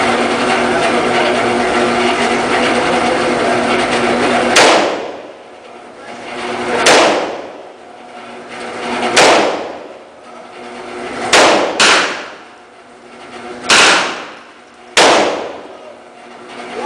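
M4-style semi-automatic rifle firing single shots, seven in all, about two seconds apart, with two fired in quick succession midway. A steady mechanical hum fills the first few seconds; after each shot it drops away and swells back up.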